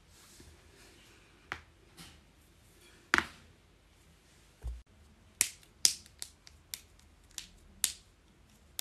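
Joints cracking: a string of about a dozen sharp pops, the loudest a little over three seconds in, with a dull low thump before a quicker run of pops in the second half.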